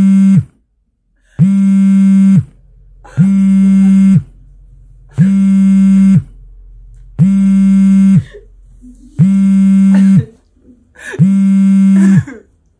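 Mobile phone buzzing with an incoming call: a harsh, steady buzz in bursts of about a second, repeating evenly about every two seconds.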